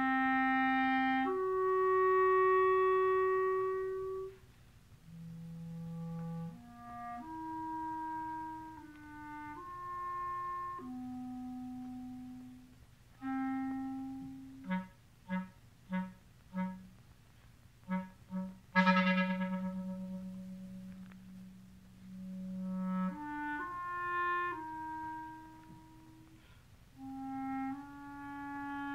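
Solo clarinet playing slow, soft held notes separated by short pauses. About halfway through comes a run of short detached notes, then a sudden loud accented low note held for a few seconds, before soft held notes resume.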